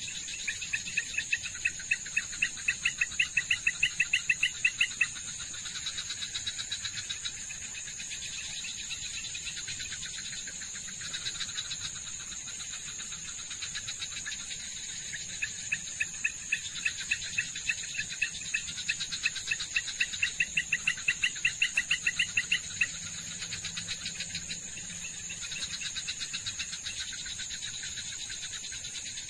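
Night insect chorus: a steady high-pitched drone, with a louder pulsed chirping call of about five pulses a second in two bouts, near the start and again in the middle, each growing louder before it stops.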